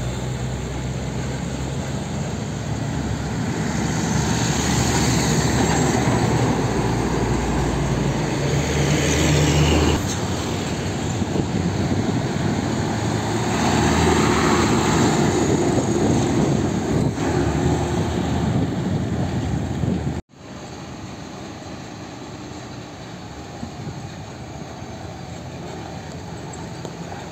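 Heavy diesel trucks passing on a road: a steady engine drone with tyre noise swelling as each truck goes by. Near the end the sound cuts off suddenly to a quieter, steady traffic rumble.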